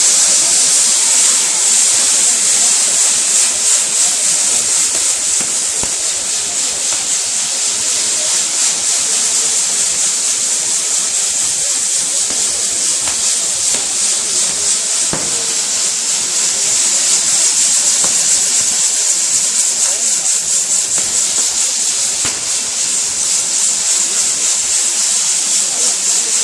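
Ground firework catherine wheel burning: a loud, steady, high rushing hiss of spraying sparks.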